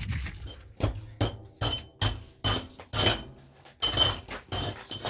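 Repeated sharp metallic strikes, starting about a second in and coming roughly twice a second, each ringing briefly.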